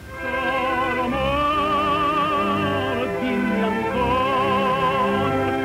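Operatic solo singing in the style of a Venetian gondolier's song, with a wide vibrato on long held notes over instrumental accompaniment. The song swells in right at the start.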